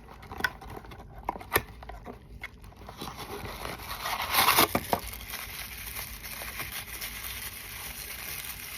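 Happy Meal toy packaging being handled and opened: scattered clicks and crinkling, with a louder rustle about four and a half seconds in.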